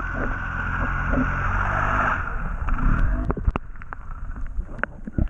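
Boat motor droning with water rushing, heard muffled underwater, with a few sharp knocks in the second half.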